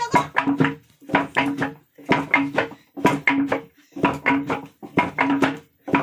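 Rhythmic hand-drum playing: a repeating pattern of three or four pitched drum strokes, about one group a second.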